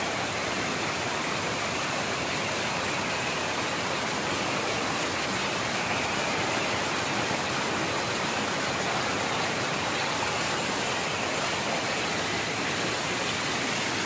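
Water pouring steadily over a low concrete weir and rushing through the foaming shallows below it, an even, unbroken rushing noise.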